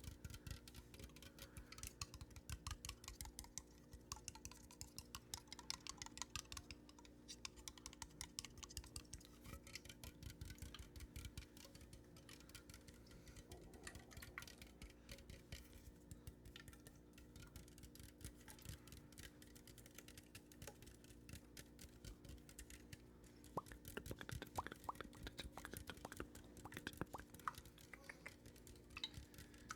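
Fingertips tapping lightly and quickly, a dense patter of small clicks that thins out in the middle and picks up again near the end.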